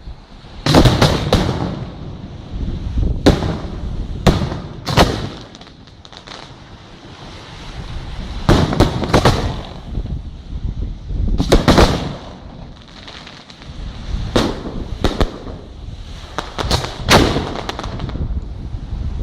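Aerial firework shells bursting in a professional display, a string of loud bangs, some in quick clusters of two or three, each with a rumbling echo.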